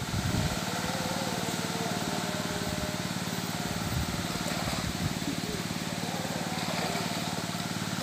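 An engine running steadily at one unchanging pitch.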